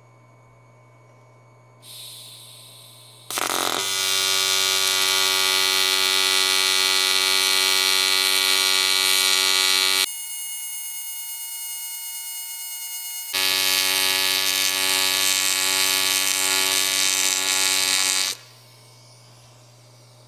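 AC TIG welding arc on aluminum: a loud steady buzz with many even tones, starting about three seconds in after a brief hiss, quieter for about three seconds midway and cutting off near the end. The AC balance is set with 30% taken off the positive side. After the arc stops, a soft hiss of shielding gas post-flow continues over a steady low hum.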